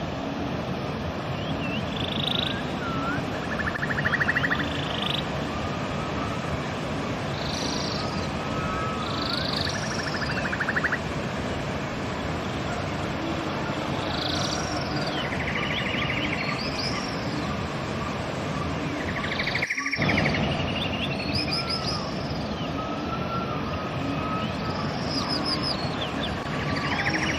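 Birds singing repeated short trills and whistled notes over the steady rush of a river. The sound cuts out for an instant about twenty seconds in.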